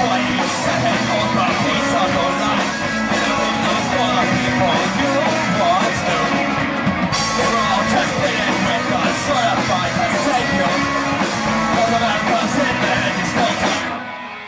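Punk rock band playing live, full band with vocals, loud and dense. The music stops abruptly near the end as the song finishes.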